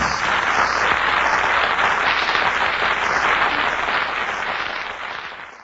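Studio audience applauding at the close of a song, heard on an old radio broadcast recording with a muffled, narrow sound. The applause fades out near the end.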